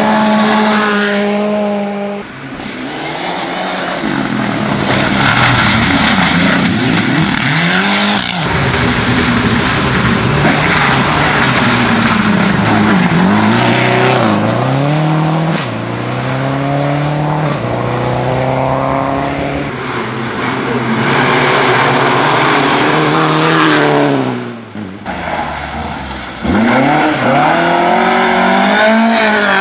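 Rally cars going flat out on a gravel stage in several separate passes, among them a Subaru Impreza and a Ford Escort Mk2. Each engine revs hard, drops at the gear changes and climbs again as the car accelerates by.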